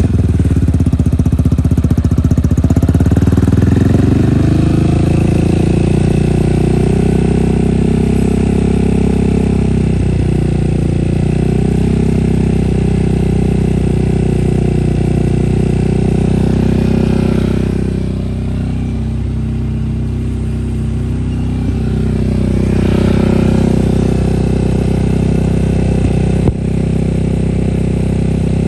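Yamaha XMAX scooter engine running through an aftermarket VAMOS sport exhaust with no silencer insert. The engine speed drops and climbs again in the first few seconds, then it holds a steady idle, a little quieter for a few seconds past the middle.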